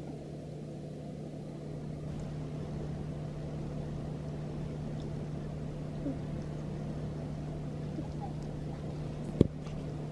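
Steady low hum over a low rumbling room noise, with one sharp click near the end.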